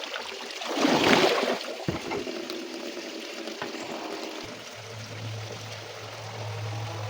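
Water running and trickling, with a louder gush about a second in; a low steady hum starts a little past halfway.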